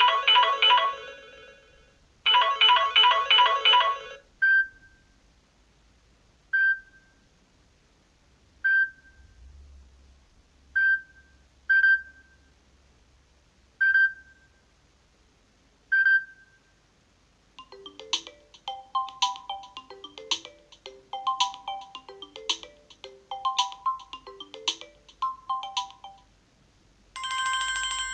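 Samsung Galaxy A12 phone playing its built-in ringtones in turn. First comes a fast warbling electronic tone in two bursts. Then a single short ping repeats about every two seconds, then a melodic tune with clicking percussion, and a new ringtone starts just before the end.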